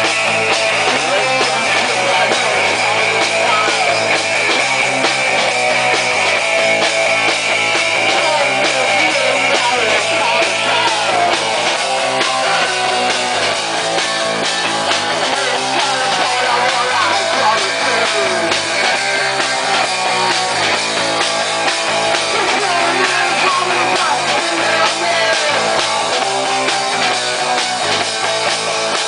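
Live punk rock band playing loud and steady: electric guitars and a drum kit.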